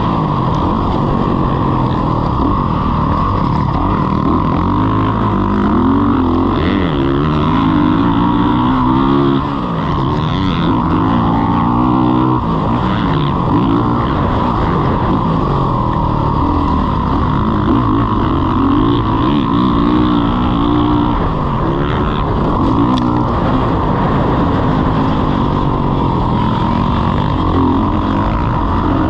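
Motocross dirt bike engine at close range, revving up and falling back again and again as the rider works the throttle around the track, with a short drop in loudness about nine seconds in.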